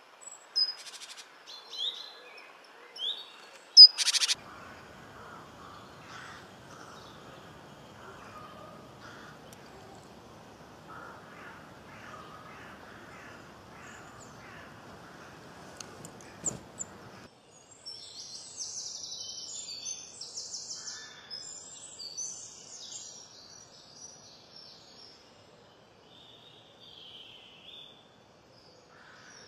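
Small songbirds chirping and calling, with a sharp click about four seconds in, played back slowed to 75% speed. From about eighteen seconds a stretch of high, rapid, buzzy notes follows, then a few faint chirps.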